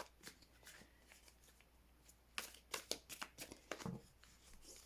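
Oracle cards being shuffled by hand: quiet at first, then a quick run of soft card snaps and flicks in the second half.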